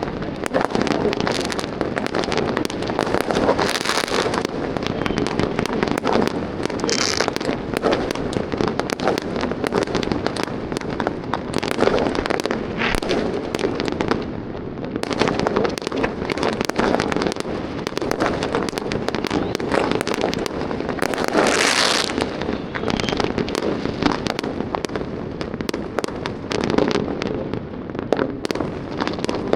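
Fireworks and firecrackers going off all around in a dense, unbroken barrage of many overlapping bangs and crackles, with a couple of brief high hisses along the way.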